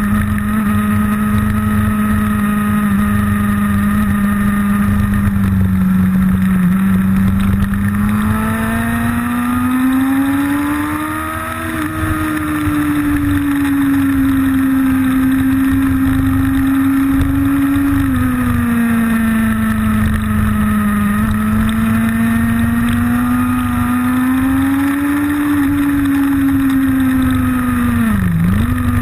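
Motorcycle engine heard from on board as the bike is ridden around a track: a steady engine note that rises and falls with the throttle through the corners, with a quick sharp dip and recovery near the end.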